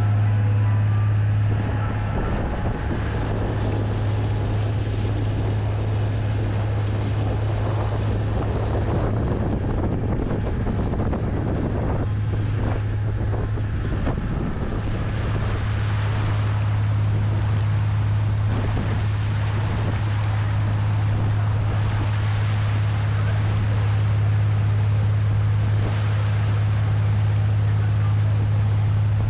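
Sightseeing boat's engine running with a steady low drone, under the rush of water and wind buffeting the microphone.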